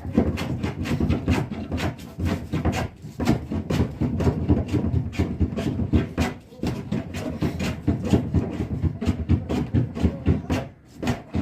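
A hand tool working wood in quick repeated strokes, several a second, with brief pauses about three seconds in, near six and a half seconds, and near the end.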